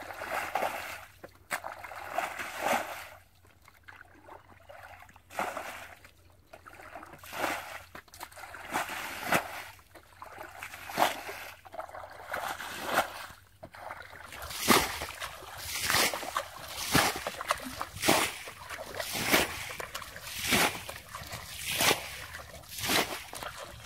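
Muddy water splashing and sloshing as a bucket is scooped through a shallow flooded rice-field pool and the water flung out, over and over, to bail the pool down. The splashes come irregularly at first, then from about halfway settle into a steady beat of roughly one every second or so.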